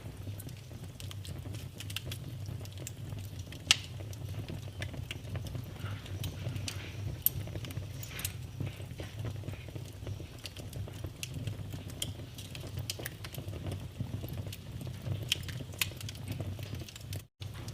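Wood fire burning in a fireplace, crackling steadily over a low rumble, with sharp pops about four and seven seconds in. The sound cuts out for an instant near the end.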